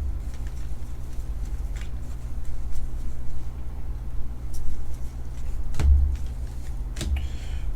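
Steady low hum with a few soft clicks and thumps, typical of trading cards being handled and set down on a table.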